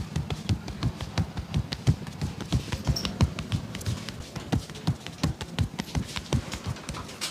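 Percussive massage: a barber's hands tapping and slapping on skin in a fast, uneven rhythm of dull thuds, several a second.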